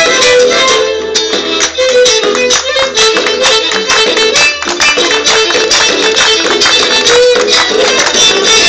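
Argentine folk dance music, a violin leading over guitar, with sharp percussive strokes all through.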